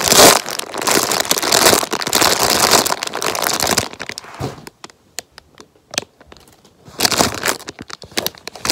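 Clear plastic packaging bag of an iBloom cloud bear squishy crinkling as it is handled and squeezed. It crinkles loudly for about four seconds, goes almost still with a few small clicks for two to three seconds, then crinkles again near the end.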